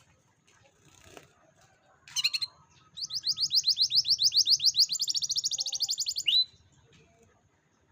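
Canary singing: a short burst of high notes about two seconds in, then a fast trill of rapidly repeated rising notes, about a dozen a second, for some three seconds, ending on a quick slurred note.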